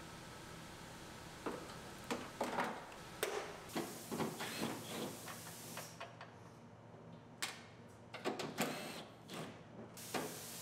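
Irregular clicks, taps and rattles of hand work on a bare steel SUV liftgate: plastic wiring-harness clips and connectors being worked loose, then a cordless impact driver run briefly on a bolt.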